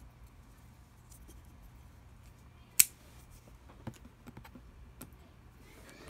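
Light scattered clicks and taps from small scissors and a cardboard box being handled as the box is opened, with one sharp click about three seconds in.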